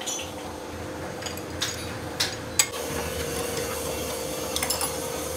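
Sharp metallic clinks and knocks of a steel spanner against the bolts and clamping ring of a steel fixture, about four in the first half and a few lighter ones near the end, over a steady machine hum.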